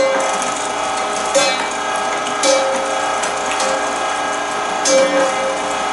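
Cabela's Carnivore 3/4 HP electric meat grinder running steadily under load, grinding bear meat as it is pushed down the feed tube with a plunger. The motor's whine holds even, with short louder sounds about a second and a half, two and a half and five seconds in.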